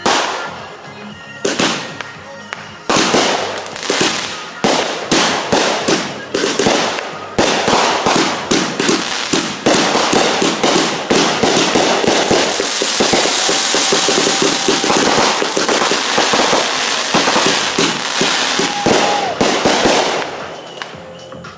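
Fireworks going off in a rapid barrage: a few separate bangs at first, then dozens of launches and bursts overlapping into near-continuous banging and crackling through the middle, dying away near the end.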